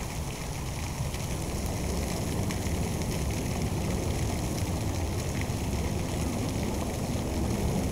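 Steady low rumble with an even hiss: outdoor background noise, with no distinct sound events.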